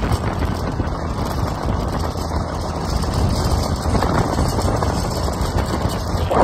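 Honda Activa scooter's engine running steadily on the move, with wind rushing over the microphone.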